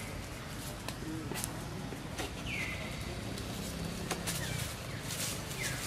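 Short whistled animal calls, each falling in pitch, two of them about three seconds apart, over a steady outdoor background with scattered sharp clicks.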